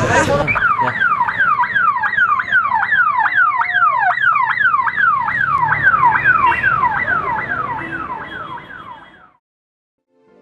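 Ambulance siren in a fast yelp, about three falling sweeps a second, fading away as the ambulance drives off and gone about nine seconds in.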